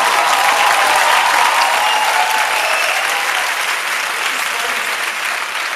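Theatre audience applauding, a dense, loud clapping that swells up just before and slowly tapers off toward the end.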